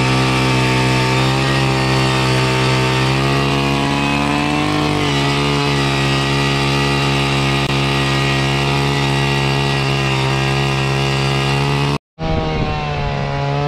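Gas-powered ice auger engine running steadily while drilling a hole through the ice, its pitch dipping slightly about a third of the way in. Near the end the sound breaks off briefly, and an engine comes back with a wavering pitch.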